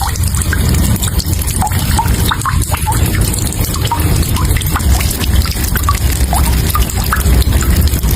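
Running water splashing, with a heavy low rumble and many small drips plopping in short rising blips.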